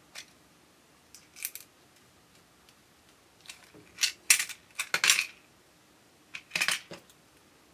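Small sharp clicks and rattles of a clear plastic drill-bit case and thin metal drill bits being handled while changing the bit in a pin vise: a few clicks about 1.5 s in, a quick run of them from about 4 to 5 seconds in, and another brief cluster near the end.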